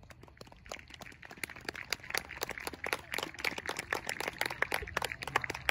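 Audience clapping, starting with a few scattered claps and filling out into steady applause over the next few seconds.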